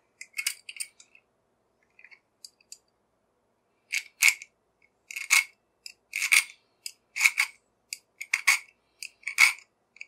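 A small file rasping across the steel shackle of a Brinks combination padlock, about one stroke a second from about four seconds in, after a few faint light clicks. The file is digging in rather than sliding off, which the owner takes as a sign that the shackle is not truly hardened.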